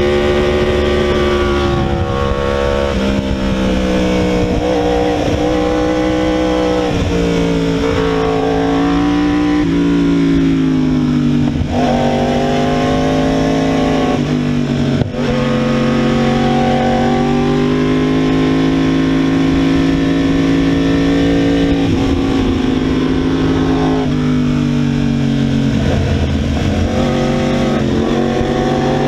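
2016 Yamaha R1's crossplane inline-four engine with a cat-delete exhaust, heard onboard at track pace: the engine note climbs and falls repeatedly with throttle and gear changes, with a short drop in level about halfway through.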